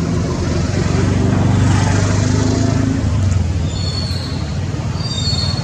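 A motor vehicle's engine running close by, with a low hum that swells in the first few seconds, then short high squeaks near the end.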